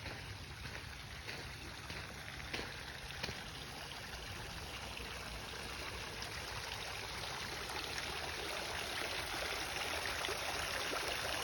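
Running water flowing and trickling like a small stream, growing slowly louder throughout, with two brief clicks a few seconds in.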